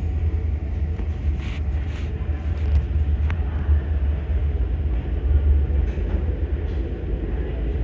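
Kawasaki-CRRC Sifang CT251 metro train arriving at the platform: a steady low rumble, with a few brief higher clicks in the first few seconds.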